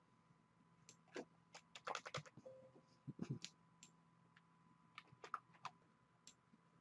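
Faint, irregular keystrokes on a computer keyboard, a dozen or so scattered clicks as text is typed.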